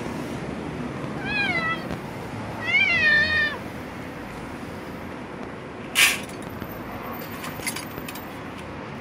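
A domestic cat meows twice, about a second in and again shortly after, the second call longer and louder. About six seconds in comes a brief sharp clatter as dry kibble lands in a stainless steel tray, followed by faint small clicks.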